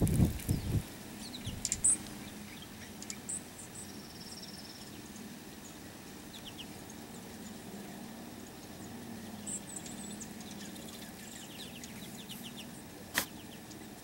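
A mixed flock of juncos and finches calling as they feed on the ground: scattered short, high chips and twitters, with a quick run of ticking notes near the end. A few low thumps in the first second and a single sharp click near the end.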